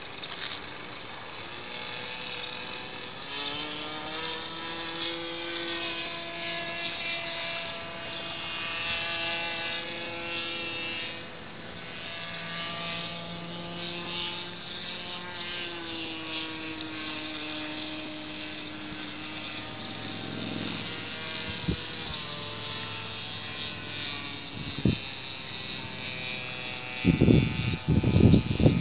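Propeller aircraft's engine droning overhead, its pitch slowly rising and falling as it flies. Near the end a loud rough rumble of noise on the microphone covers it.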